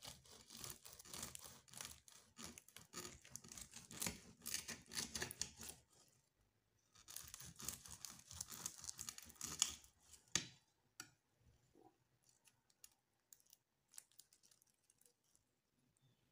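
Knife sawing through the flaky baked crust of a cheese and spinach pastry roll, with the pastry layers crackling and crunching. There are two cuts, one about six seconds long and a second about three and a half seconds long after a short pause, then a few faint clicks as the cut slice is eased apart.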